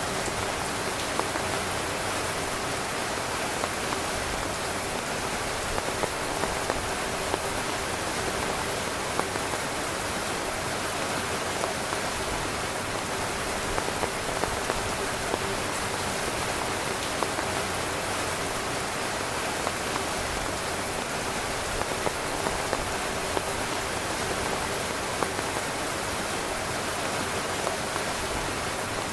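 Heavy rain falling on a camping tent's fabric: a steady, dense hiss of rain with frequent scattered louder taps of single drops.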